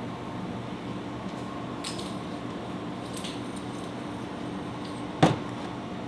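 Steady hum of room tone with a few faint clinks, and a single sharp knock about five seconds in.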